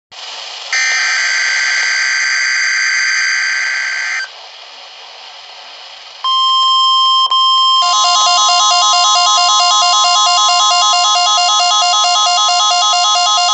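NOAA Weather Radio weekly test signal over radio hiss. First the screeching SAME digital header data for about three and a half seconds. After a stretch of hiss, the steady 1050 Hz warning alarm tone starts about six seconds in, and about eight seconds in a fast two-note beeping alarm joins it.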